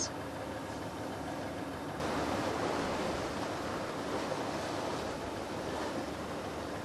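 Sailing yacht moving through the broken water of a tidal race: a steady rush of water and wind, a little louder from about two seconds in.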